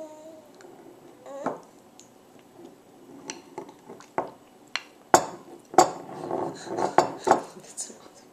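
Spoon clinking against a glass bowl: a series of sharp clinks, a few faint ones first and louder ones in the second half.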